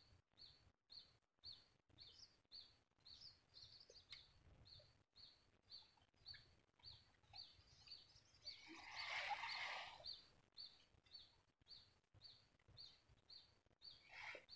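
Near silence with a faint, high chirp repeated evenly about twice a second. A brief burst of rustling noise comes about nine seconds in.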